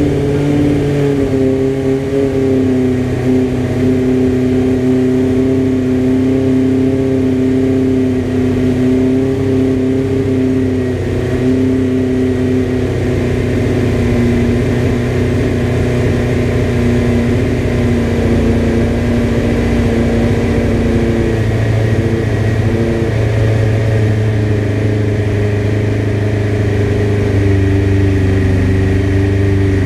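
1997 Suzuki GSX-R600 SRAD's carbureted inline-four running steadily at a slightly high idle after its gummed-up carburetors were cleaned. The note wavers a little a few times.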